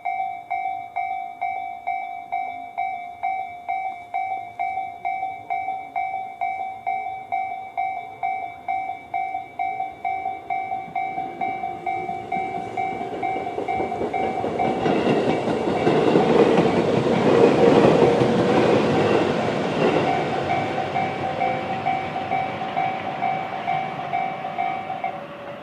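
Japanese level-crossing alarm: an electronic bell dinging steadily about twice a second while a Tobu 20400 series electric train approaches and passes, its wheels clacking over the rails and loudest about halfway through. The bell stops just before the end, once the train has cleared the crossing.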